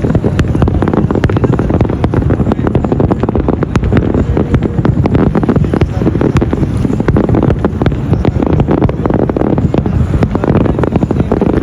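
Fireworks going off continuously, many pops and crackles a second, over a loud rumble of wind buffeting the microphone.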